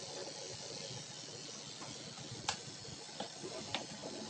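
Electric grooming clippers running steadily on a dog's leg fur, a constant hiss, with three sharp clicks in the second half.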